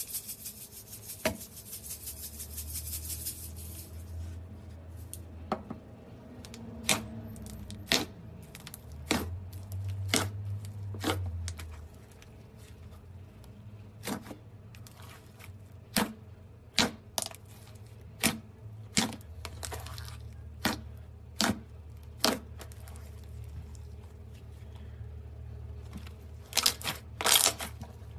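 Slime being squeezed and poked by hand: a dense fine crackle for the first few seconds, then sharp irregular clicks and pops about once a second, several in quick succession near the end, over a low steady hum.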